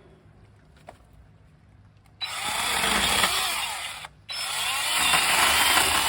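Kobalt 6-inch brushless battery pruning chainsaw running and cutting wood in two bursts, the first starting about two seconds in and the second after a brief pause past the halfway mark.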